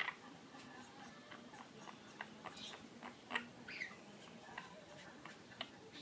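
Quaker parrot (monk parakeet) making soft, scattered chirps, clicks and quiet chatter, with one louder chirp about three seconds in.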